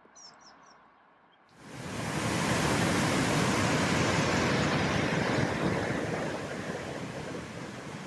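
White-water river rushing over rapids, starting suddenly about a second and a half in and easing slightly toward the end.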